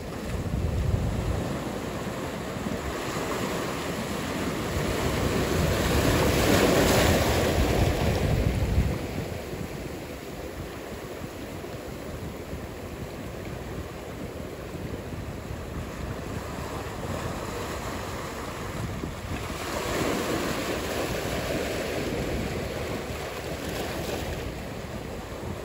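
Ocean surf breaking and washing in, with wind on the microphone. The noise builds to a loud swell that drops away sharply about nine seconds in, and a smaller swell comes near twenty seconds.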